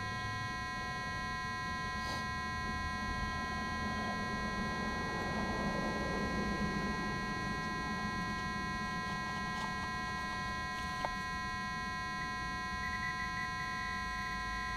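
A steady electronic hum made of several fixed high tones, with soft rustling as soil and grass are handled for a few seconds in the middle.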